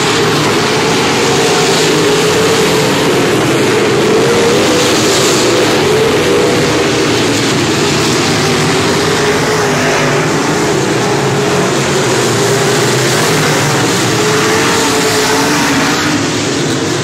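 A pack of dirt-track modified race cars under racing power, their V8 engines making a loud, continuous drone whose pitch wavers as the cars lift and get back on the throttle.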